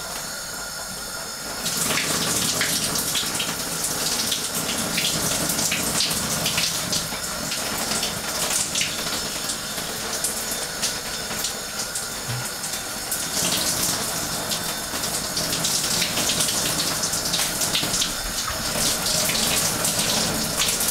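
Shower spray running steadily and splashing over a person standing under it, hissing; it gets louder about two seconds in.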